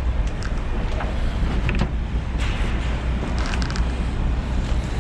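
Steady wind rumble on the microphone, with scattered knocks, scuffs and clicks as someone climbs down out of a derelict Unimog truck's cab.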